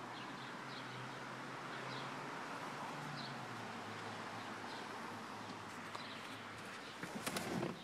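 Outdoor ambience with faint, short bird chirps repeating every second or so over a low steady hum. A few sharp clicks and knocks come near the end.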